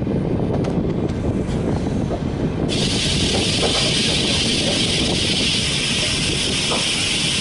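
Passenger train running on the rails, heard from on board a coach as a steady rumble. About three seconds in, a loud hiss sets in abruptly and stays.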